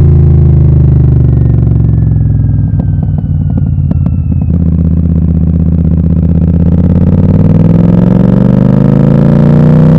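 Royal Enfield Super Meteor 650's 648 cc parallel-twin running loud through a Gursewak aftermarket exhaust with the dB killers removed. The note holds steady with a few sharp crackles about three to four seconds in, then climbs steadily in pitch through the second half as the revs rise.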